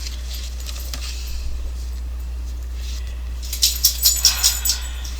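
A dog's collar jingling in a quick run of about seven metallic clinks a little past the middle, over a steady low electrical hum.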